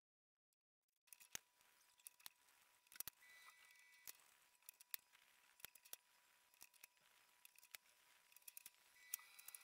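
Faint, irregular clicks and taps of a metal spoon against a glass bowl as coconut mixture is scooped and rolled into balls. They start about a second in, with near silence between them.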